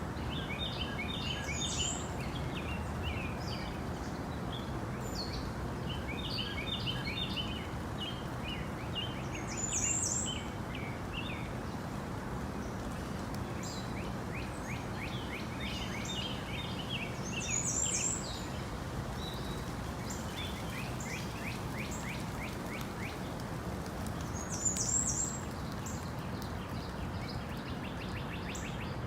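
Tropical rainforest ambience: a steady hiss of background sound with several birds calling. Quick chattering phrases repeat throughout, and a sharper, higher call stands out about every eight seconds.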